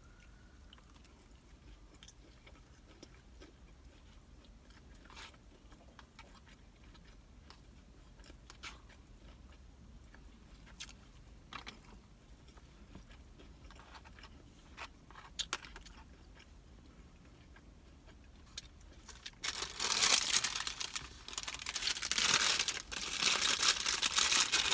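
Close-up mouth sounds of a person eating: faint wet chewing clicks for most of the stretch, then loud crunching from about three-quarters of the way in, as she bites and chews crisp food.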